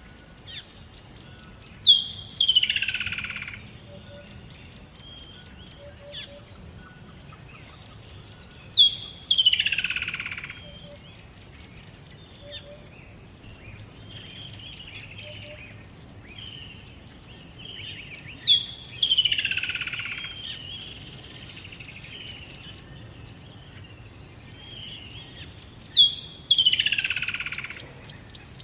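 Birds singing: one bird repeats a loud phrase four times, about every seven to eight seconds, each a sharp high note followed by a long slurred note falling steeply in pitch. Softer short chirps from other birds fill the gaps, and a fast high trill comes in near the end, over a faint low rumble.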